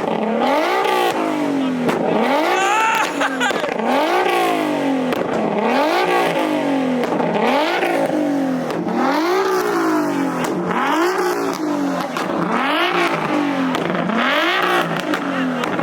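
A car engine being revved over and over, its pitch climbing and falling back with each blip, roughly once a second.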